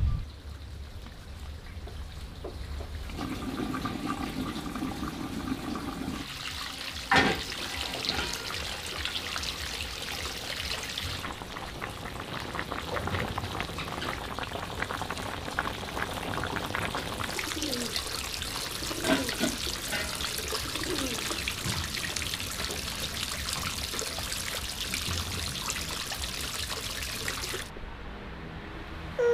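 A pot of meat-stuffed bamboo shoot rolls simmering in broth: a steady bubbling, watery hiss, with one sharp click about seven seconds in.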